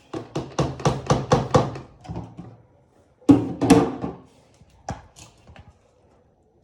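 Kitchen utensil knocking against cookware: a run of quick knocks, about four a second, then two louder thunks about half a second apart a little over halfway through.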